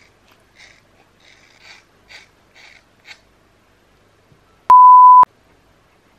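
Scissors snipping through a lock of hair, about six short snips over two and a half seconds. Then a loud, steady electronic beep lasting about half a second, the kind of bleep edited in to cover a word.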